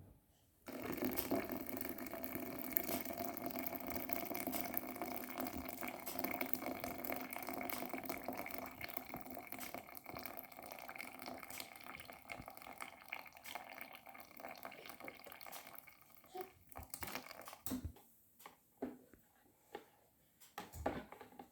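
Water running steadily for about fifteen seconds, then stopping, followed by a few light knocks and clicks.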